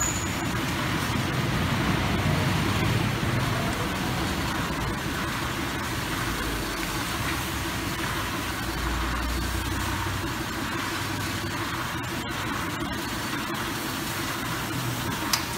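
Yamaha Sniper 150's single-cylinder four-stroke engine, fitted with a dry clutch and an aftermarket exhaust, idling steadily. A short sharp knock comes near the end.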